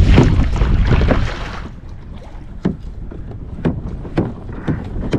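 Wind and water rushing around a kayak at sea, loud for the first second and a half and then dropping away, followed by a few sharp separate knocks or taps.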